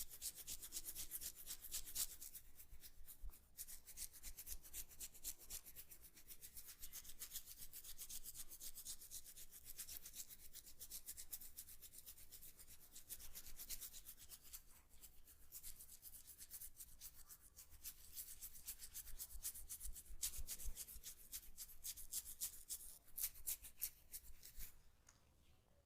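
Hands rubbing and scratching quickly over hair and skin in a massage, heard close up: a dense run of quick, scratchy strokes that eases off near the end.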